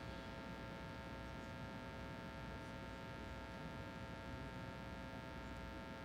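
Quiet ice arena room tone: a steady hum with several faint, even high tones.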